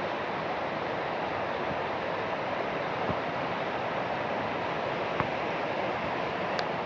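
Steady rain falling, an even hiss with a couple of sharp ticks about three and five seconds in.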